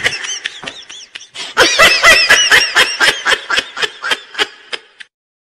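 High-pitched human laughter: a quick run of short 'ha' bursts, about four a second, starting about one and a half seconds in and fading away over the next three seconds.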